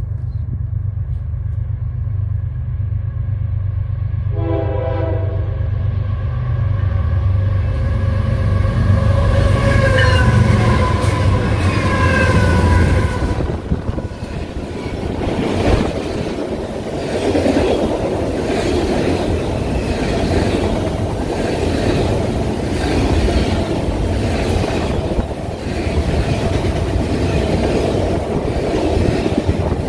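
Amtrak passenger train passing close by: the locomotive gives a short horn blast about four seconds in, and its diesel rumble builds and goes by. The cars then follow with a steady rhythmic clickety-clack of wheels over rail joints.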